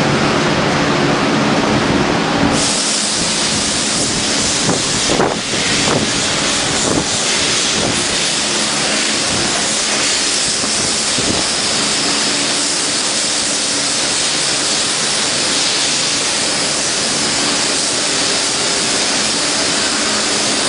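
Factory machinery on an LED tube light production line running with a steady, loud hiss and hum. The hiss brightens about two and a half seconds in, and a few sharp clicks come a few seconds later.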